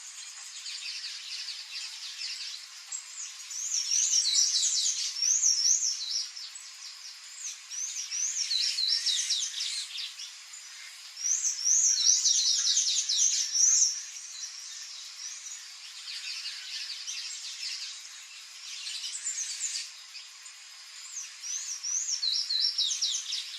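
Songbirds singing and chirping in several bouts of quick, high, squeaky repeated notes, over a steady background hiss.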